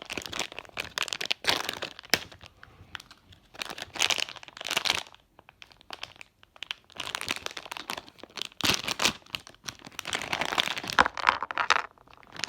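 A small plastic toy packet being torn open and crinkled by hand, in irregular bursts of rustling with a short pause about halfway through.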